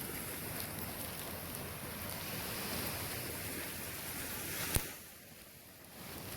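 Ocean surf and wind on the microphone, an even rushing noise. About five seconds in there is one sharp click, and the rush drops lower for about a second before returning.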